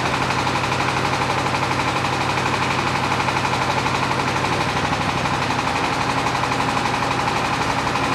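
HF120W water well drilling rig's engine running steadily with a fast, even knocking rhythm, powering the rig's hydraulics while the rotary head is moved along the mast.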